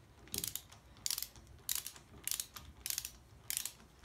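Ratchet wrench clicking on its back-strokes in six quick bursts about two-thirds of a second apart, running down the pinion flange bolt on a Land Rover Defender front differential.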